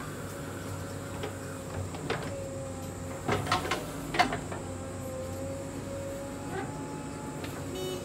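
JCB 3DX backhoe loader running steadily alongside an idling tractor, with a steady whine, while its backhoe bucket digs into the soil: a cluster of knocks and clanks from the bucket about three to four seconds in, the sharpest just after four seconds.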